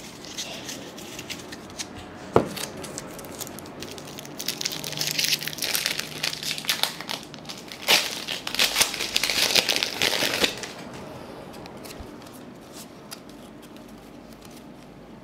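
Foil wrapper of a trading-card pack being torn open and crinkled. A sharp click comes about two seconds in, and the crinkling runs from about four seconds in to about ten seconds in.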